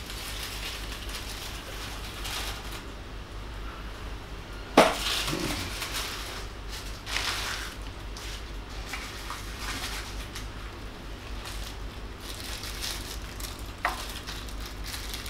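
Rustling and light clatter from statue parts being handled and fitted together, with a sharp knock about five seconds in and a smaller click near the end.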